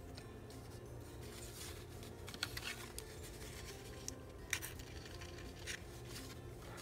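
Soft paper rustling and light scraping as a small paper tag is handled and worked with a thin wooden tool, with a few sharper ticks about a third and two-thirds of the way through, over a faint steady low hum.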